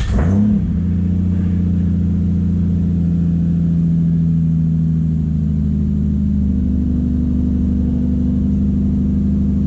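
Toyota 2JZ inline-six engine in a Mazda RX-8 catching right at the start with a brief rev flare, then settling into a steady idle.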